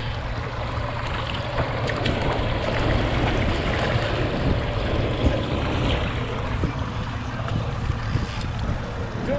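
Steady wind rumble on the microphone aboard a fishing boat, with water and boat noise underneath.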